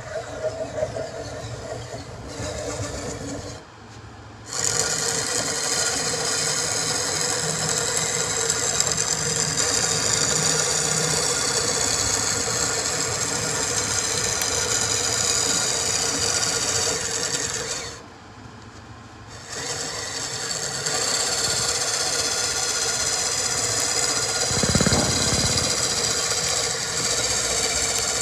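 Electric drill spinning a hickory dowel through a cutting die, its motor whining steadily over the scraping of the die shaving the rod down to 3/8 inch. The sound is lighter for the first few seconds, and it drops away briefly twice, once about four seconds in and once about two-thirds of the way through.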